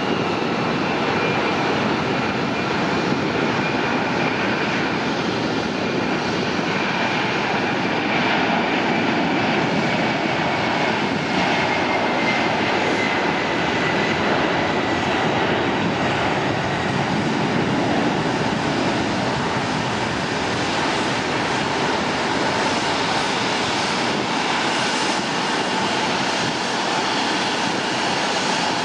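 Boeing 767-300 freighter's twin jet engines at takeoff power during the takeoff roll: a steady, loud rush of jet noise with a thin whine that slowly falls in pitch over the first half.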